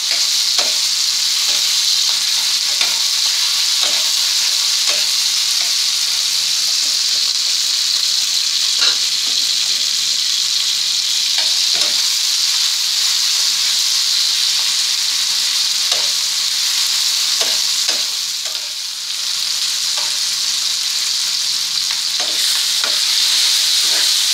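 Vegetables sizzling in oil in a frying pan, with a steady hiss. They are stirred by hand, the utensil scraping and clicking against the pan about once a second.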